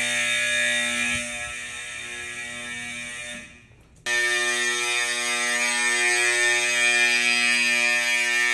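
Fire alarm horn sounding a steady, buzzing blare. It fades out a little after three seconds, then comes back abruptly and loud about four seconds in.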